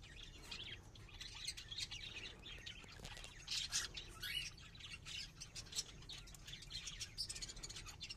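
Several cockatiels chirping and squawking, many short calls overlapping in a steady chatter, loudest a little past the middle.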